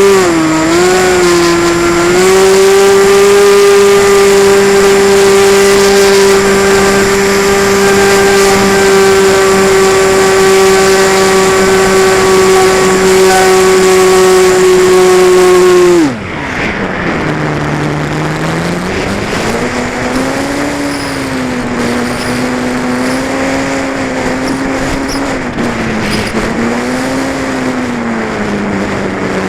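Engine and propeller of a model Cessna 185 in flight, heard from on board. The throttle comes up just after the start and holds a steady high-pitched drone for about fourteen seconds. About halfway through the power is cut sharply, and the pitch then wavers lower with throttle changes.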